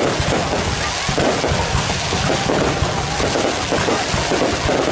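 Fireworks display: aerial shells bursting and crackling in quick succession, one on top of the next with no pause.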